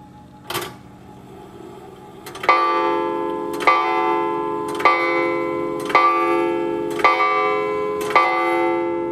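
An antique French Morbier clock (about 1880) striking the hour on its gong: six ringing strokes about a second apart, each ringing on into the next, counting six o'clock. A single sharp click comes about half a second in, before the striking starts.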